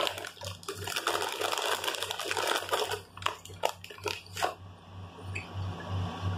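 Close-up chewing of a soft ham sandwich, with moist mouth sounds and small crunches. A dense crinkling, plausibly the plastic chip bag being handled, fills the first three seconds. A low hum pulses steadily underneath.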